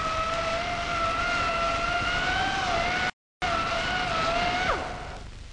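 Handheld pneumatic tool broaching a hole, running with a steady high whine that wavers slightly in pitch. The sound cuts out briefly about three seconds in, and near the end the tool winds down with a falling pitch.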